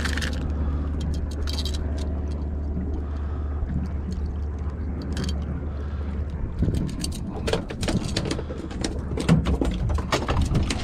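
A small bluefish being unhooked with pliers, then dropped onto a fiberglass boat deck and flopping, heard as a quick run of sharp slaps and taps in the second half. A steady low rumble underneath stops partway through.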